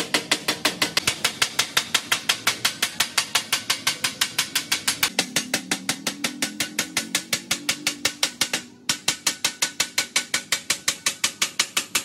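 Rapid hammer blows along the seam of a rolled shiny steel sheet forming a water-heater tank shell, about six sharp metallic strikes a second, with a short break about three-quarters of the way through.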